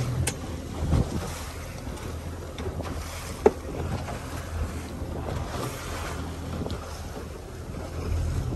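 Fishing boat's engine running steadily while under way, with wind on the microphone and the sea washing along the hull. A single sharp knock about three and a half seconds in.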